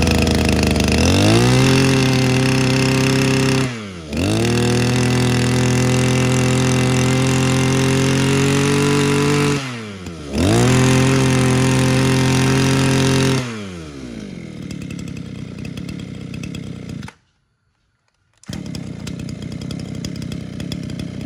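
Echo 26 cc two-stroke brush cutter engine running. It is revved up to high speed three times, held there several seconds each time with a short drop between, then falls back to a steady idle. The idle and the revving are very solid, the sign of a used engine in good running order.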